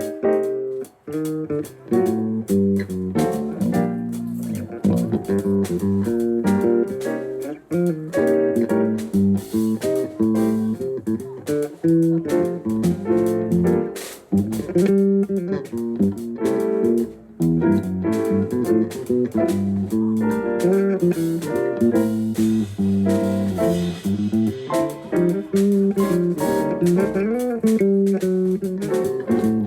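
A band playing during a sound check, with guitar and bass guitar to the fore and notes that change continuously with no break.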